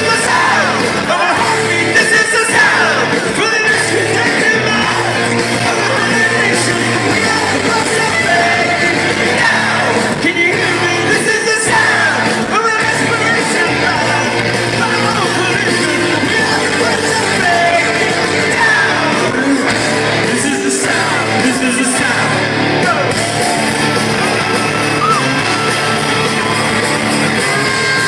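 Rock band playing live in a large hall, loud and unbroken, with singing and yelling from the stage and the crowd around the recording phone.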